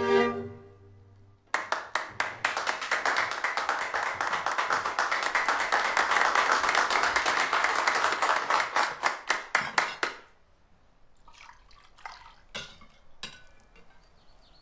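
A small audience applauds for about eight seconds. It starts with a few separate claps, swells into steady clapping, then thins to scattered claps and stops. Just before, the last note of the music dies away, and near the end there are a few faint clicks.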